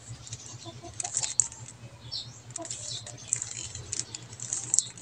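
Plastic 3x3 Rubik's cube being turned by hand, its layers clicking and rattling in quick, irregular runs as an algorithm is performed.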